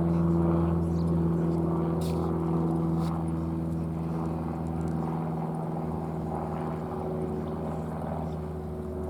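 A steady mechanical hum holding one low pitch throughout, with a couple of faint clicks about two and three seconds in.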